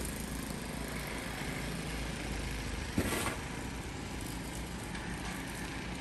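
A snowblower engine running steadily at a distance, with one short scrape of a snow shovel cutting into packed snow about three seconds in.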